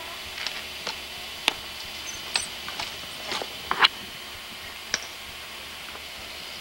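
Irregular sharp clicks and taps, about ten scattered over several seconds and loudest near the middle, over a steady high hiss.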